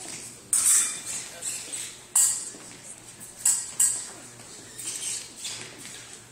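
Sharp, ringing metallic clicks and taps from an épée fencing bout, about eight of them at irregular intervals.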